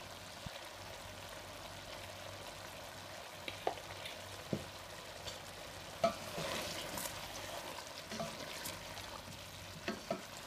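Chicken and vegetables sizzling softly in a pot, with a few light clicks and taps. Stirring starts near the end.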